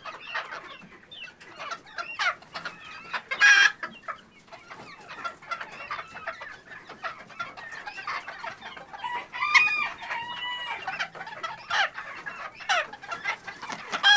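A coop full of chickens clucking and calling in short, scattered bursts, with one louder outburst about three and a half seconds in. Around nine to ten seconds in a rooster crows, a string of short pitched notes.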